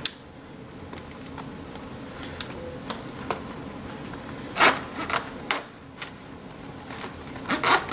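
Stiff plastic clamshell packaging being cut open with a knife, giving scattered crackles and sharp snaps of the plastic. The loudest snap comes a little past halfway, and a quick run of crackles comes near the end.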